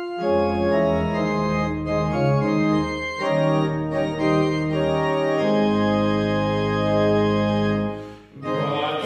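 Two-manual church organ playing slow, sustained chords over a deep pedal bass, the chords changing every second or so, with a short break near the end.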